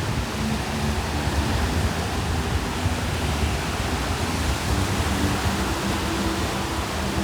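Sea waves: a steady, even rush of surf with no distinct breaks between swells.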